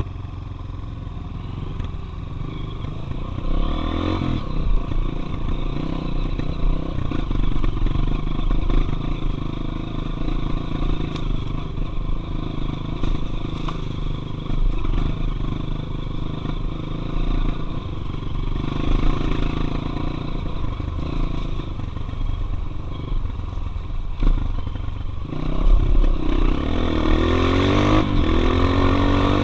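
Single-cylinder four-stroke trail motorcycle engine running while riding, its pitch rising and falling with the throttle; the revs climb about four seconds in and again near the end.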